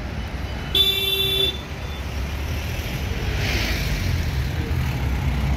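Street traffic, with a vehicle horn sounding once briefly about a second in. A low engine rumble from passing traffic grows in the second half.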